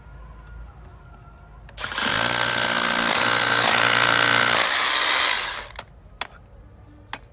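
Makita 12V cordless rotary hammer drilling into masonry: a loud, steady hammering run of about three and a half seconds that starts about two seconds in and stops. Two sharp clicks follow.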